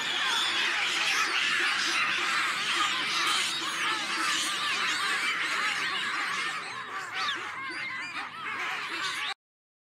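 A troop of baboons calling together, many shrill overlapping screams and barks at once, as they mob an impala. The calling cuts off suddenly about nine seconds in.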